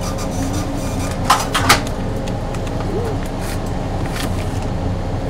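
Steady hum and clatter of a busy commercial kitchen, with two sharp clacks close together about a second and a half in.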